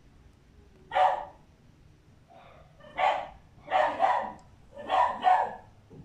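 A dog barking: four or five short barks, the first about a second in and the rest close together in the second half.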